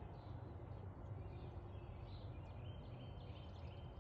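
Faint outdoor ambience: a steady low rumble with small birds chirping and singing short whistled phrases.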